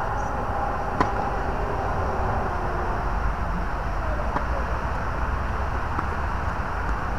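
Tennis racket strikes on a ball: a sharp pop from the near player's serve about a second in, a fainter serve strike about four seconds in, and a faint far return strike two seconds later. Underneath runs a steady low outdoor rumble.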